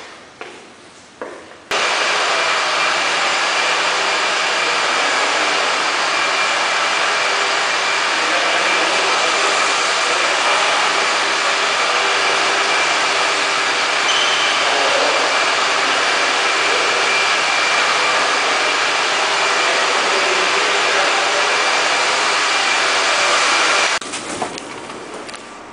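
A loud, steady rushing machine noise with a faint constant whine in it. It switches on abruptly about two seconds in and cuts off shortly before the end.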